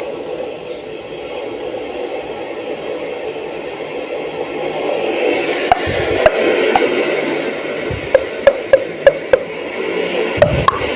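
A steady rushing noise that swells slightly partway through, with a string of sharp clicks and taps in the second half.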